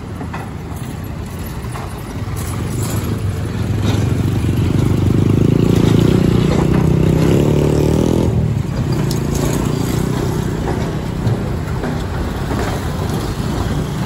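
A heavy engine running over a steady traffic rumble, growing louder about four seconds in and easing off again about eight seconds in.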